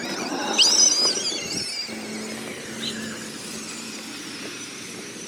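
A child's high-pitched, wavering squeal lasting about a second and a half. It gives way to a steady low hum, likely the kids' electric ATV's motor.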